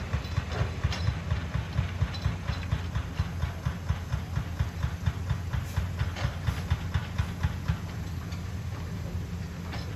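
Diesel engines of Hitachi hydraulic excavators running, a low drone with a rapid, uneven pulsing beat that evens out near the end.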